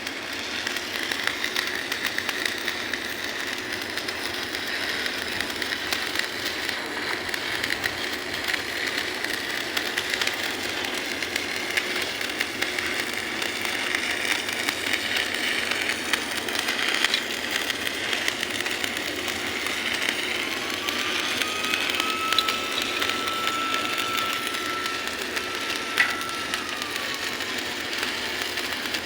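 Steady industrial machinery noise. About two-thirds of the way through, a single long tone rises, holds for several seconds and falls away.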